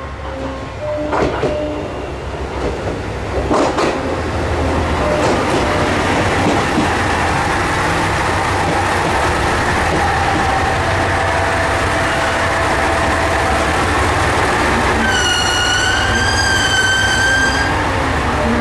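A KiHa 187 Super Matsukaze diesel express pulling into the platform: a few sharp clacks at first, then the rumble of its engine and wheels growing louder from about four seconds in. Near the end a high brake squeal lasts about two and a half seconds as it draws to a stop.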